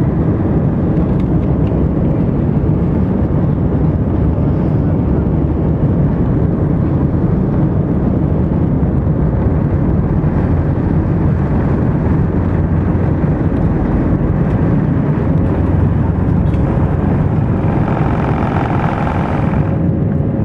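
Jet airliner's engines at takeoff power, a loud steady roar heard inside the cabin during the takeoff roll and initial climb. A steady hum comes in near the end, and a higher rushing layer builds and then cuts off suddenly.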